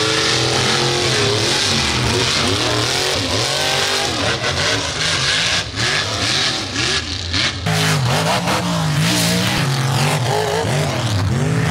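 Mud truck's engine revving hard again and again, its pitch climbing and falling as it powers around a dirt freestyle track. About eight seconds in the note breaks off and picks up again on a different run.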